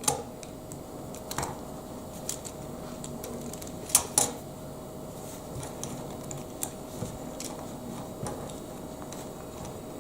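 Lego Technic plastic pieces being handled and fitted together: scattered light clicks and taps, with two sharper snaps close together about four seconds in, over a faint steady hum.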